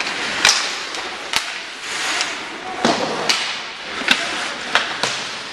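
Ice hockey play: about seven sharp clacks and bangs of sticks, puck and players against the boards, over a steady hiss of skates on the ice and faint arena chatter.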